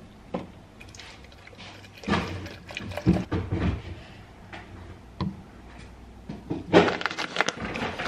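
Kitchen handling sounds as smoothie ingredients go into a plastic blender cup: liquid poured in and containers set down and knocked on a wooden worktop, in a series of short irregular clatters. The blender motor is not running.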